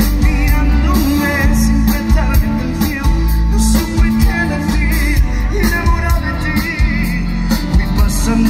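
Live pop-rock band playing: drum kit, electric bass and acoustic guitar, with a wavering melody line on top.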